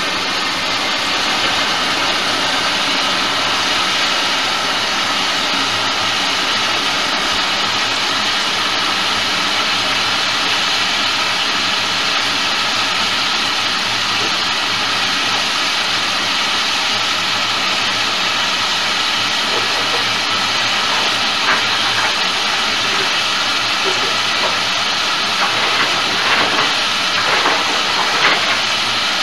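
Steam locomotive venting steam: a loud, steady hiss that swells up in the first second and holds, with a few light knocks in the last third.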